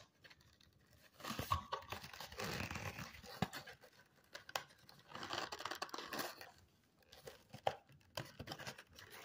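Phone-box packaging being handled: paper and plastic wrapping crinkling and tearing in three or so bursts, with a few sharp taps in between.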